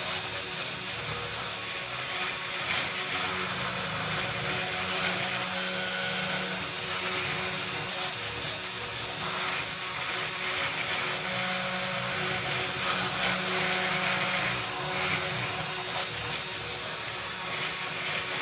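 Sainsmart Genmitsu 3018 desktop CNC router running a carving job: its spindle motor gives a steady whine while the bit cuts into a pine board.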